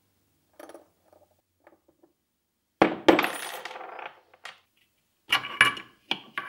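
Steel gears from a 1978 Land Rover Series 3 gearbox being slid off the main shaft and handled: faint metal clicks and scrapes, then a sharp metallic clank that rings briefly about three seconds in, and a few more clinks near the end.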